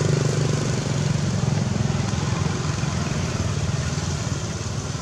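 A small engine running steadily, gradually fading.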